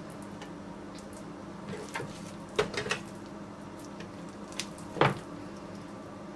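Oily boyoz dough being torn off and pressed into a greased baking tray by hand: soft squishing and handling noises, with a few light clicks, the sharpest about five seconds in.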